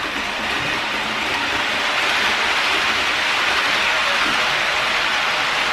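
KATO KiHa 85 series N-gauge model train running over a curved track bridge and round the bend, its wheels on the rails and its motor making a steady rushing, rattling noise that grows a little louder about two seconds in.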